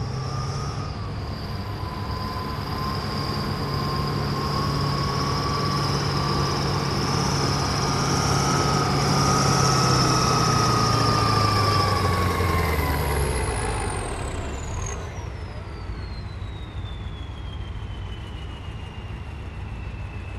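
Turbocharged diesel of a Kirovets K-700/K-701 tractor running at full load while pulling a weight sled, with a loud turbo whistle over the engine note, building to a peak about halfway. Near two-thirds of the way the engine backs off and the turbo whistle winds down in a long falling glide.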